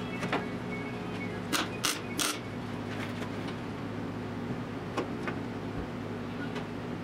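MIG welder tack-welding a sheet-steel patch panel into a car's rear wheel well: three short bursts in quick succession about a second and a half in, with a few fainter clicks elsewhere, over a steady low hum.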